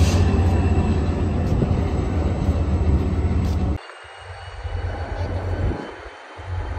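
Commuter train hauled by a GP40FH-2 diesel locomotive passing with a loud, steady low rumble. About four seconds in the sound cuts off abruptly to a quieter, uneven rumble.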